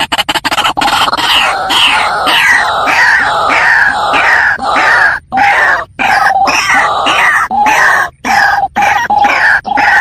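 A waterhen-type rail (the bird the video calls a water cock) calling over and over in loud, harsh, croaking notes, each falling in pitch, about two a second. A steadier held note joins in from about halfway.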